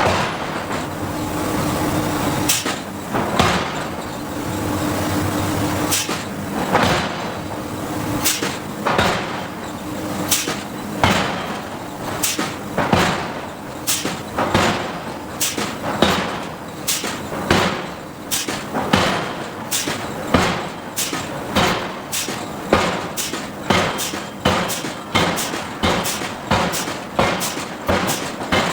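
Hydraulic forging hammer striking hot steel repeatedly: a few scattered blows at first, then a steady run of about three blows every two seconds. A machine hum with a steady low tone runs under the first part and fades after about ten seconds.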